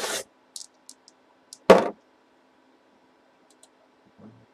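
Dice tossed onto the lid of a cardboard box: a short rattle, a few light clicks, then the loudest knock a little under two seconds in.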